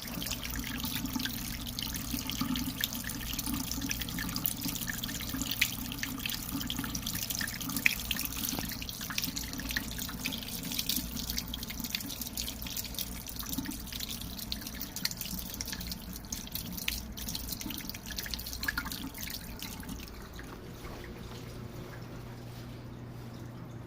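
Water splashing and dripping into a kitchen sink, with a steady low hum underneath. The splashing thins out about twenty seconds in.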